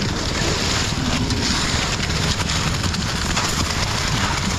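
Concrete mixer truck running steadily, its engine and turning drum making an even mechanical noise during the pour.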